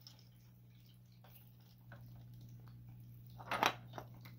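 A rabbit nosing the plastic cups of a treat puzzle tray, making faint plastic clicks and knocks. A louder brief clatter comes about three and a half seconds in, as a cup is pushed loose.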